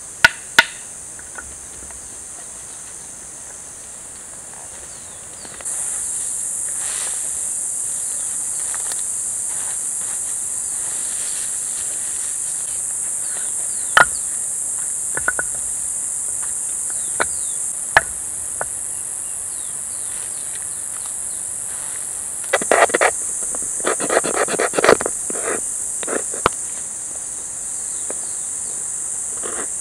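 Insects buzzing steadily and high-pitched throughout, louder from about six seconds in. Dry branches snap sharply twice at the start. Later come single knocks of wood, then a quick run of sharp knocks and cracks about three-quarters of the way through.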